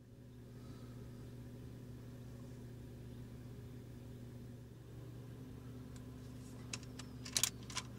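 Faint, steady hum of a vehicle engine idling, with a few sharp clicks about seven seconds in.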